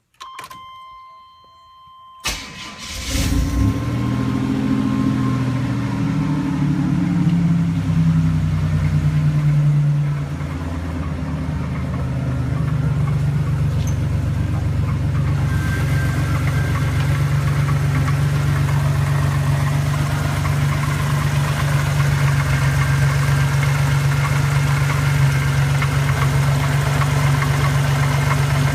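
Car engine cranked and started about two seconds in, after a steady electronic tone, then idling steadily. The owner wonders whether the idle has a knock.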